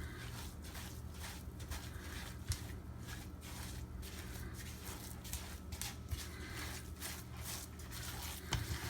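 Ground chickpea falafel mixture being mixed in a bowl: a run of soft, irregular squishing strokes, with a sharper knock about two and a half seconds in and another near the end, over a steady low hum.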